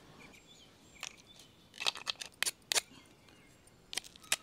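A small knife scraping mussel shells, stripping off the crusty outer layer and the fibrous beards: several short, sharp scrapes at irregular intervals.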